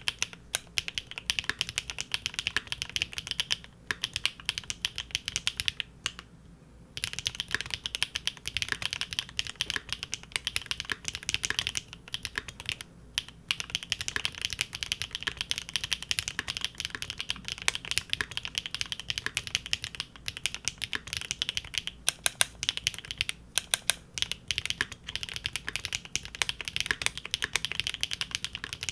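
Continuous fast typing on a Big Whale custom mechanical keyboard with GEON Raw Zero switches on a polycarbonate plate: dense keystrokes, briefly pausing about six and a half seconds in and again about thirteen seconds in.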